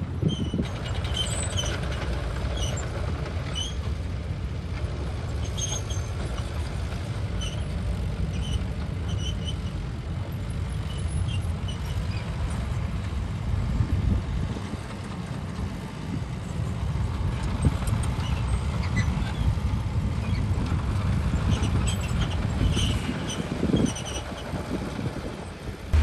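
Heavy diesel machinery running steadily with a low rumble, with scattered faint high clicks and squeaks over it.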